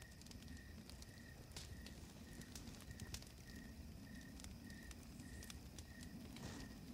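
Faint night ambience: a campfire crackling with scattered pops and a brief hiss near the end, over an insect chirping steadily a little under twice a second.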